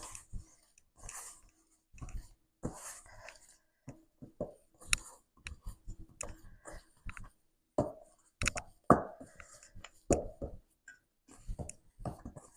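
Hands kneading sticky, over-wet whole-wheat dough: irregular short slaps and clicks as the dough is pressed and pulled from the fingers.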